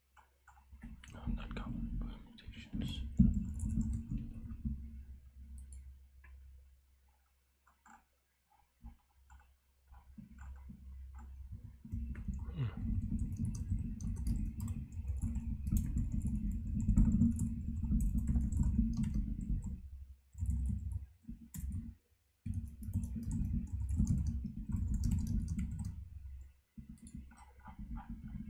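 Typing on a computer keyboard: rapid key clicks with dull low thuds, in several bursts broken by short pauses.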